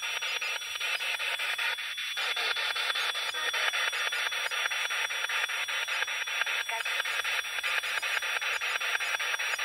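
Spirit box scanning through radio stations: a steady radio hiss chopped into rapid, even clicks as it jumps from channel to channel.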